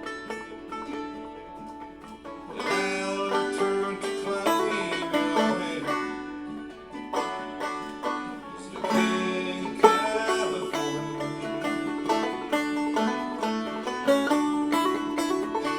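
Clawhammer banjo, capoed at the second fret, playing a song out of the C position with quick picked notes and chord changes.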